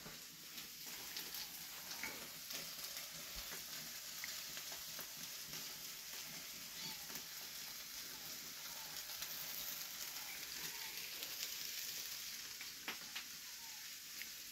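Fish roasting over a wood fire, a faint steady sizzle with many small crackles.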